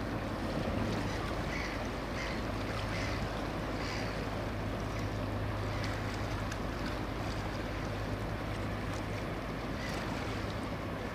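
Police launch's engine running with a low, steady drone as the boat cruises past, with water washing and wind in the background; the drone fades near the end.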